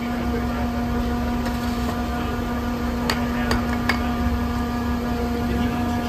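Cementech volumetric concrete mixer truck running with a steady hum, with three sharp knocks a little past halfway.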